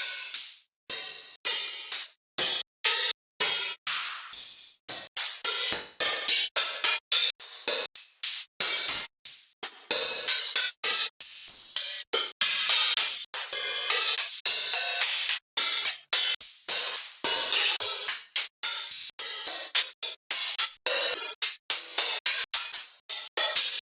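A run of synthwave drum-machine one-shot samples, mostly hi-hats and cymbals, played one after another. Each is a bright, hissy hit that dies away quickly, with short gaps between them at first and coming closer together after about ten seconds.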